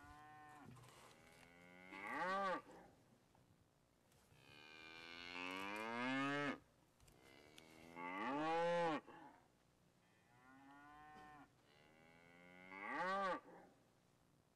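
Cattle mooing: a string of five or six separate moos, each about one to two seconds long with short gaps between them, one of them a longer drawn-out call.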